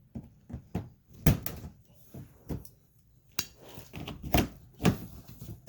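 Irregular sharp plastic knocks and clicks as the car's fender liner and its pop clips are handled and pulled aside, about a dozen in all, the loudest a little over a second in.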